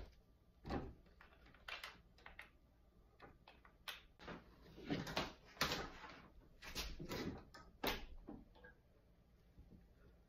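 Scattered clicks, knocks and rustles of a power cord and plug being handled and plugged in to power a drum carder's motor, with no motor running.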